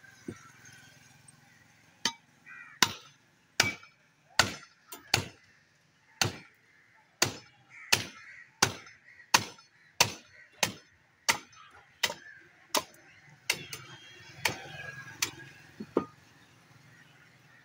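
Heavy butcher's cleaver chopping into a skinned buffalo head: about twenty sharp, even blows, roughly one every 0.7 seconds. They start about two seconds in and stop near the end.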